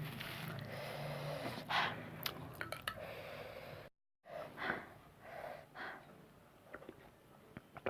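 A person eating very spicy noodles, breathing hard and sucking in air through the mouth against the heat, with a few small sharp clicks. The sound cuts out completely for about half a second roughly four seconds in.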